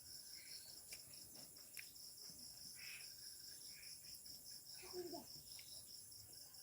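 Faint crickets chirping steadily, a high-pitched pulse repeating about five times a second, with a few soft clicks over it.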